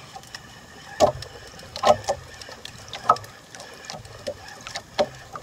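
Water slapping against the hull of a small outrigger boat in irregular sharp knocks, over a faint steady hiss.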